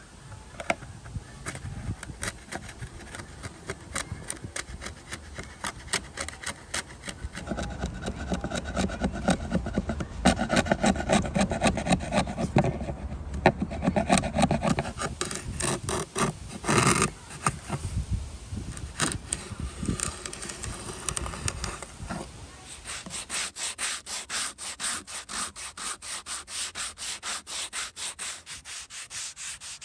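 A wood chisel scraping and paring shavings out of the grooves of a routed fluted wood panel, in irregular strokes and small taps. About two-thirds of the way in it gives way to a hand sanding block rubbing back and forth along the flutes in quick, even strokes.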